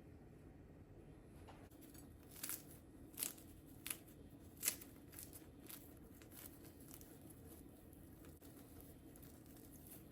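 A few sharp clicks or taps, four of them close together a couple of seconds in and fainter ones after, over a low steady hum.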